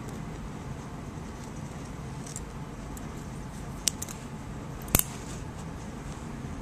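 A few light metallic clicks from surgical instruments being handled while suturing, with two sharper clicks about four and five seconds in, over a steady low background hum.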